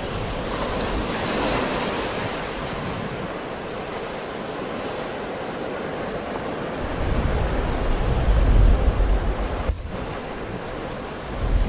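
Sea waves washing continuously onto the shore, with wind buffeting the microphone as a deep rumble from about seven to nine seconds in. A momentary break in the sound comes near the end.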